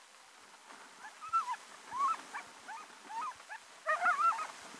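Alaskan husky sled dogs whining in harness: a string of short, high calls that bend up and down, starting about a second in and coming roughly every half second, several crowding together near the end.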